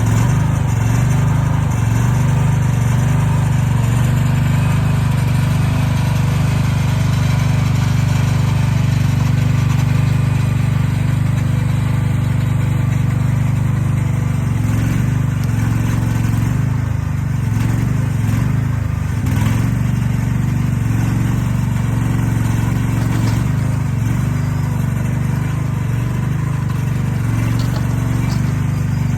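Diesel engine of earthmoving equipment running steadily under work, with a few knocks about halfway through.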